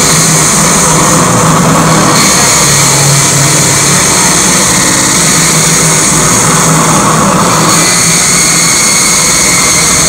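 Loud electronic noise from a live experimental noise set: a dense wall of hiss over a steady low drone. Its texture shifts about two seconds in and again after about seven seconds.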